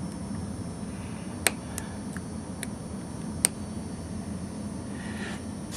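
Hobby knife blade cutting a small plastic kit part free of its sprue: a few sharp clicks as it snips through, the two loudest about a second and a half and three and a half seconds in, over a steady low hum.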